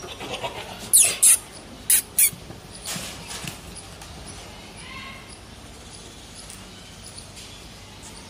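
Goats at a pen. Three or four short, loud, sharp hissing bursts come between about one and two seconds in, and a faint goat bleat follows about five seconds in.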